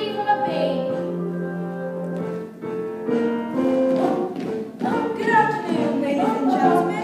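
Young stage cast singing a musical-theatre number with instrumental accompaniment, with sustained notes that change pitch every half second to a second.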